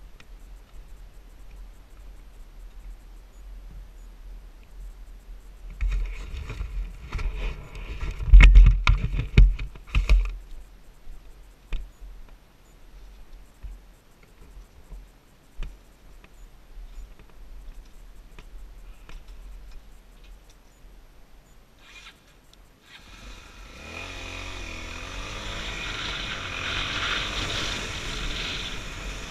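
Honda XR250 Tornado's single-cylinder engine starting up near the end and running as the bike pulls away along a gravel track, its pitch rising. Earlier, a cluster of loud knocks and scrapes comes from the dropped motorcycle.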